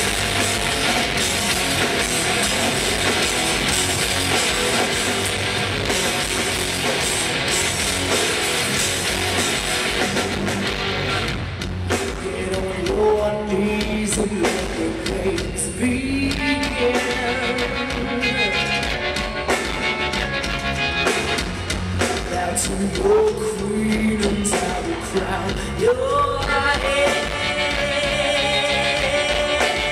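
Live hard-rock band playing loud, with electric guitars and drums. A melody line, sung or played, comes in about twelve seconds in.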